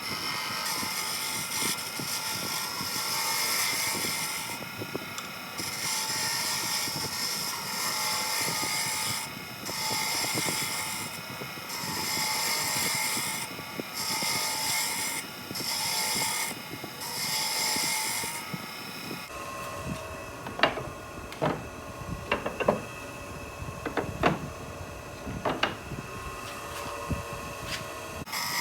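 A woodturning chisel scraping a spinning wooden peg on a Wen benchtop lathe, in repeated passes with short pauses, over the lathe's running motor. About 19 seconds in the cutting stops and several sharp knocks follow.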